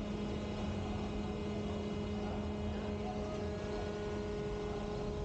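Steady machinery drone from a ship's hydraulic steering gear and its pump running, a constant low hum with a few higher tones over a rumble.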